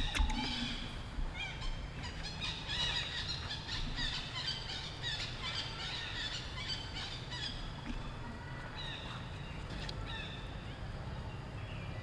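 Many short, high chirping animal calls, thickest in the middle stretch and thinning out near the end, over a steady low rumble.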